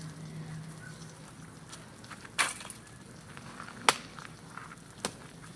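Wood bonfire crackling softly, with three sharp pops from the burning wood spaced a second or so apart.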